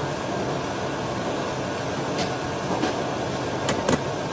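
Steady whirring of a kitchen fan, with a few light clinks of a metal utensil against a pan during the second half, the last two close together.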